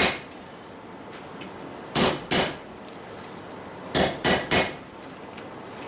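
Hammer blows on steel over a 90-pound Vulcan cast-iron anvil. There are two strikes about two seconds in, then three quicker strikes about four seconds in, each with a short ring.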